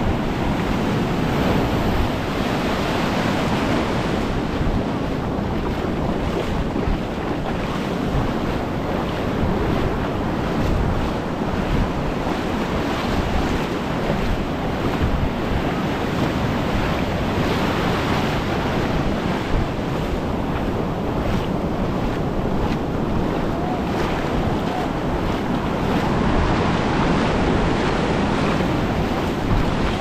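Sea waves washing onto a sandy beach in a steady wash that swells now and then as waves break, with wind rumbling on the microphone.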